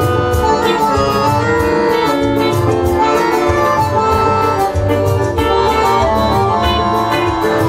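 Semi-hollow electric guitar played live over backing music with a steady beat and pulsing bass.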